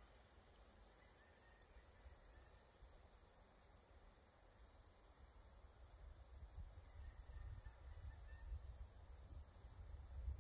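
Near silence: faint, steady high-pitched insect chirring, with a low rumble growing louder in the second half.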